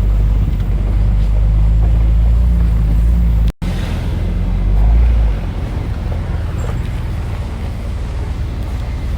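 Off-road SUV engine running with a steady low rumble. It cuts out for an instant about three and a half seconds in, comes back, and is a little quieter from about five seconds in.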